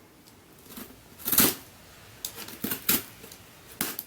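A mailed package being opened by hand: several short bursts of rustling and scraping packaging, the longest a little over a second in.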